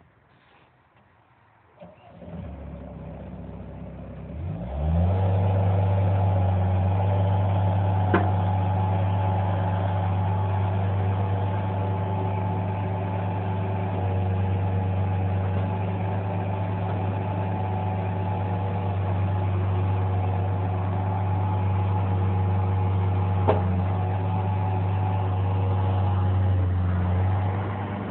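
Bobcat 763 skid steer's four-cylinder Kubota diesel cranking over for a couple of seconds, catching and revving up, then running steadily at raised speed before dropping back near the end. Two brief clicks are heard during the run.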